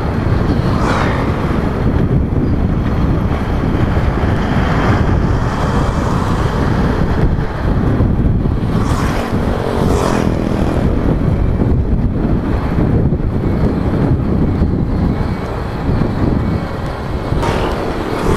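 Wind rushing over a motorcycle-mounted microphone while riding at road speed, with the motorcycle's engine and tyre noise running steadily underneath.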